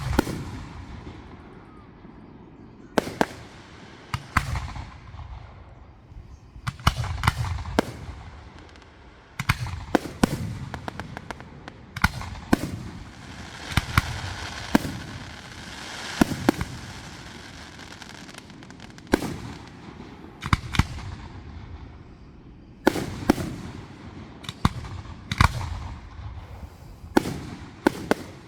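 Aerial fireworks going off one after another: sharp bangs in clusters, several followed by a deep rumbling boom, with a stretch of crackling about halfway through.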